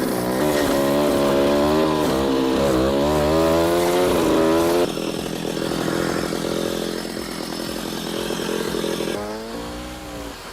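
Engine-driven machinery running, its pitch rising and falling repeatedly as it works. About five seconds in it cuts abruptly to a steadier machine noise.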